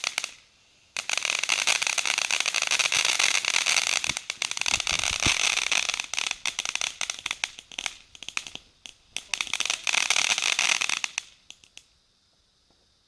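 A lit firework crackling: a dense, rapid run of small pops and sizzle that starts about a second in, thins to scattered pops midway, picks up again, and stops with a few last pops near the end.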